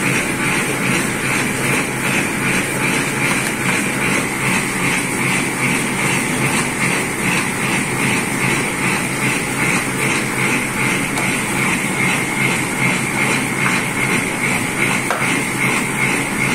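Film lamination machine running steadily as printed carton sheets are fed through its rollers, a continuous mechanical rumble with a regular beat about three times a second.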